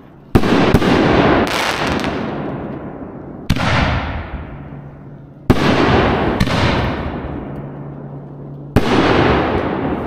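Four-inch canister shell fireworks going off one after another from a fused rack: four loud bangs two to three seconds apart, each trailing off in a long rumble, with a few smaller pops between them.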